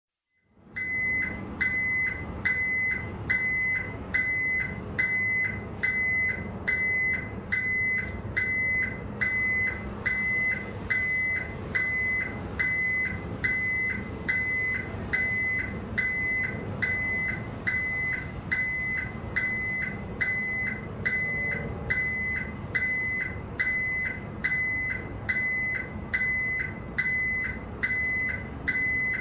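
Truck reversing alarm beeping steadily, a single high tone repeating about three times every two seconds, over the low rumble of the truck's engine.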